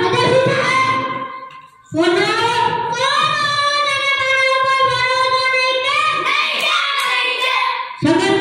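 A child singing into a microphone in long, drawn-out notes. The voice fades out about a second in, comes back just before two seconds with one long phrase, and starts a new phrase near the end.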